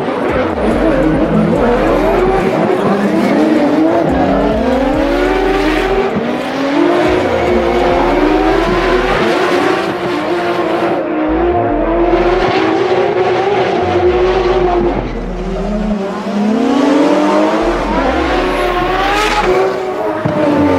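Two drift cars in a tandem run, engines held at high revs with the pitch swinging up and down as the throttle is worked through the slides, over the screech of spinning tyres. The revs drop sharply about 15 seconds in, then climb again.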